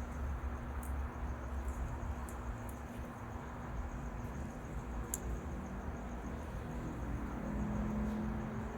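A faint, steady insect trill over a low background hum, with a few small, scattered clicks from hands handling the hose and connector parts.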